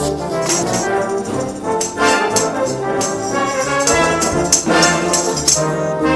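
Brass band playing a full-sounding piece, with trombones and trumpets sustaining chords and percussion hits marking the beat.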